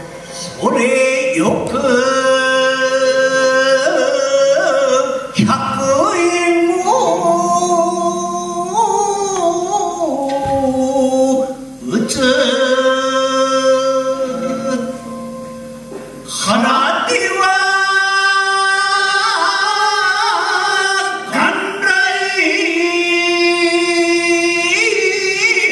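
Japanese shigin poetry chanting by men's voices: long drawn-out sung notes with slow wavering ornaments, in phrases broken by short pauses every four to six seconds.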